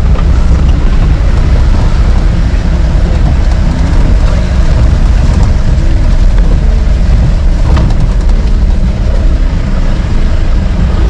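Off-road jeep driving over a rough dirt track: a steady, loud low rumble of engine and jolting body, with a sharp knock about eight seconds in.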